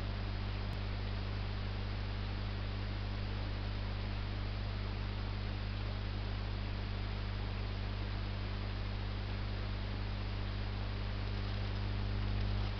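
Steady mains hum with an even hiss over it; no distinct ticking stands out.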